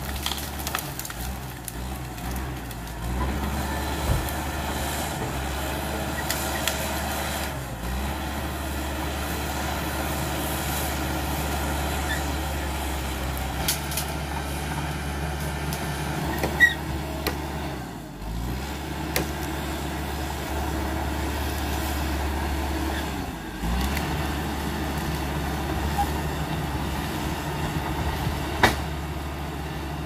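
Caterpillar D5K XL crawler bulldozer's diesel engine running steadily under load while the machine works through felled brush. The engine note drops briefly three times, and a few sharp cracks stand out above it.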